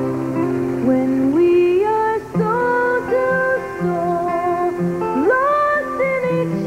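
A slow song on acoustic guitar with a woman singing. Her voice slides up into long held notes, about a second in and again near five seconds.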